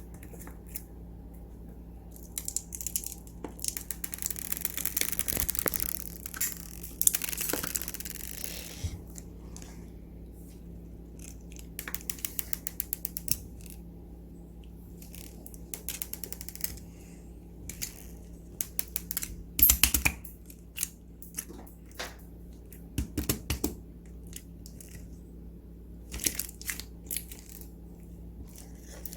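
Hands kneading, stretching and pressing slime: irregular sticky clicks, pops and squishy crackles, coming in clusters with short lulls between them.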